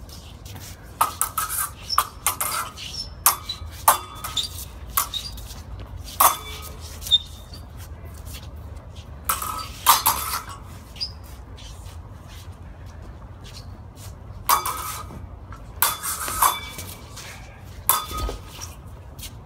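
Steel practice swords clashing in sparring: sharp metallic clinks with a brief ring, in flurries of several strikes. The flurries come about a second in, around ten seconds, around fifteen seconds and near the end.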